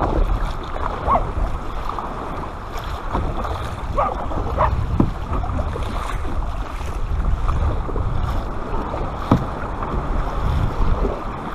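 Kayak paddle dipping into and pulling through the sea, with water splashing and gurgling along the inflatable kayak's hull. A steady low rumble of wind on the microphone runs underneath.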